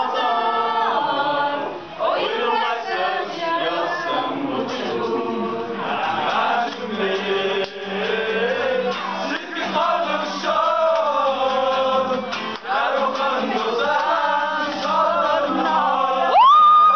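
A group of people singing a song together, with men's voices prominent. Near the end a loud, high, held note rises in and holds over the singing.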